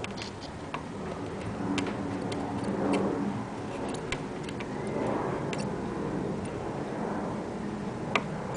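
Scattered sharp ticks and clicks over a low steady hum, from hand soldering work: a soldering iron heating a microcontroller's pins while a fine enamelled wire is drawn out beneath them.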